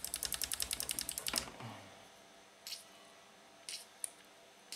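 Slide potentiometers of a graphic equalizer clicking fast and evenly as they are worked back and forth by hand to spread WD-40 through the stiff, noisy tracks. The clicking stops about a second and a half in, and a few short hisses from a WD-40 spray can follow.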